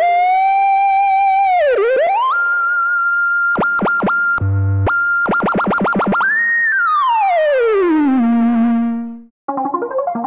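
Omnisphere 'Tainted Flame Lead' synth lead playing a single-note line with portamento glides: a held note that swoops down and back up, a high held note broken by rapid stuttering drops, then a long smooth slide down to a low note that cuts off about nine seconds in. A chordal keyboard patch starts just after.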